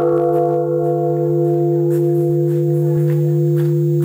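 Japanese temple bell (bonshō) struck once with its wooden beam, then ringing with a deep steady hum under several higher tones. The higher tones die away after about two seconds, while the low hum holds on undiminished.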